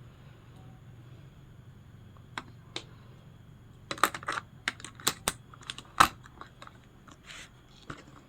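Irregular sharp plastic clicks and taps from handling a wall clock's battery compartment as a new battery is pressed in: two light clicks, then a quick cluster about four seconds in, the loudest near six seconds.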